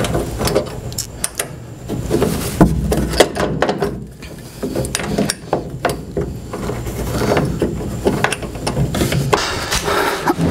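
Hand-tool work on a table saw's caster mounting: irregular metallic clicks, knocks and rattles as the reversed casters are fastened to the base.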